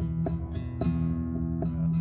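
Instrumental background music: a guitar picking a steady run of notes, about three a second, over held low notes.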